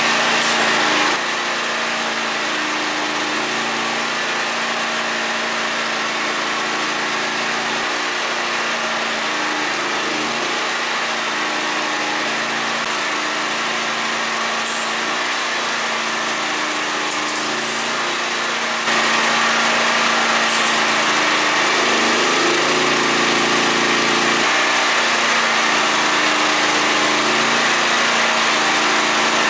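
Stick welding with a 1/8-inch rod: the arc gives a steady crackling hiss, which gets louder about two-thirds of the way through. Under it runs the steady hum of the Predator 8750 generator engine powering the welder, and its pitch wavers briefly a few seconds after the arc gets louder.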